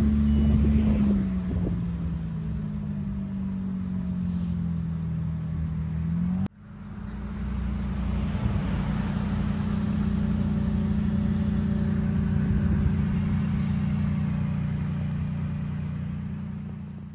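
Tuk-tuk motor running steadily under way, heard from the open passenger cabin with air rushing past. Its droning note sags a little in pitch a second or two in, cuts out abruptly about six seconds in, and comes back steady.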